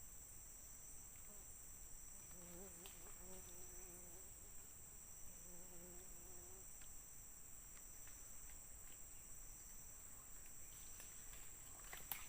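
Faint, steady high-pitched chorus of forest insects such as crickets. A faint low hum comes twice in the middle, and a few sharp clicks sound near the end.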